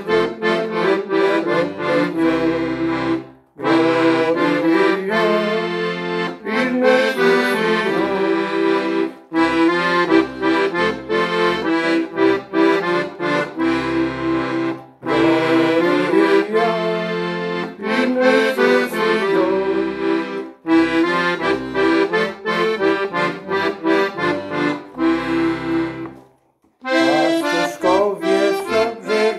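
Weltmeister piano accordion played solo: a melody on the keyboard over bass and chord buttons, broken by a few brief pauses between phrases.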